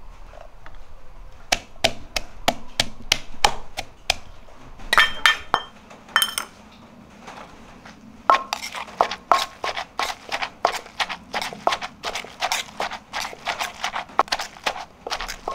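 Wooden pestle pounding in an earthenware mortar, steady strokes about three a second. Around five seconds in the pounding gives way to a few ringing clinks and a short lull, then it picks up again steadily.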